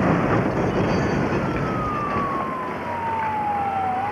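A loud, even rush of noise carries on from a gas explosion. An emergency-vehicle siren wails over it: one slow falling sweep from about a second in, which turns to rise again near the end.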